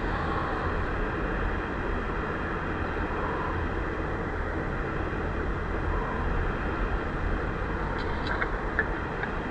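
Steady background noise, strongest in the low end, with a few light clicks late on as the blue handheld sewing machine is handled.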